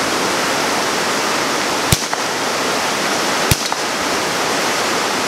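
Ruger 10/22 semi-automatic .22 LR rifle fired twice, sharp shots about a second and a half apart, with a third shot right at the end. A loud, steady hiss of heavy rain runs under them.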